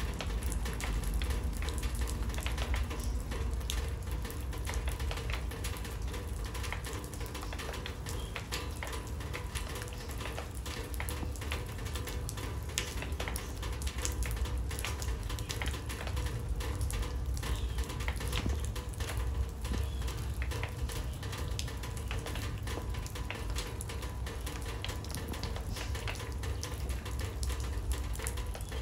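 Steady rain pattering into a water-filled birdbath and onto wet paving: a dense, even spatter of countless small drop splashes.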